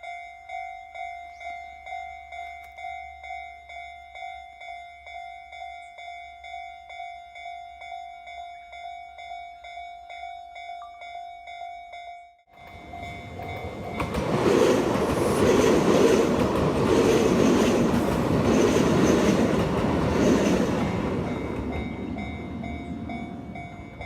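Level-crossing warning bell on a barrier-less Japanese crossing, an electronic chime pulsing about twice a second. About 12 seconds in it breaks off suddenly, and a Kintetsu Yoshino Line train passes over the crossing, its wheels clacking over the rail joints as the noise swells and then fades. The bell is heard faintly again near the end.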